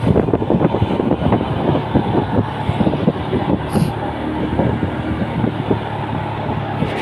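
Motor vehicle running on the road. An uneven rushing noise fills the first half, and a steadier low engine hum settles in from about halfway through.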